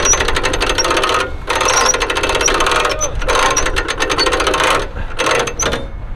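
Hand winch on a car trailer being cranked, its ratchet pawl clicking rapidly in runs broken by short pauses, as it hauls a car up onto the trailer. The clicking thins out and stops near the end.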